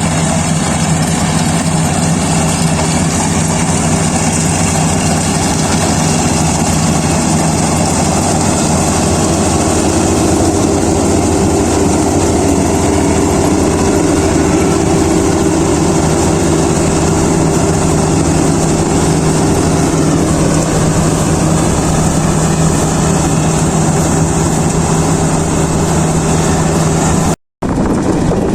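Kubota DC-35 rice combine harvester's diesel engine and machinery running steadily while harvesting, cutting out for a moment near the end.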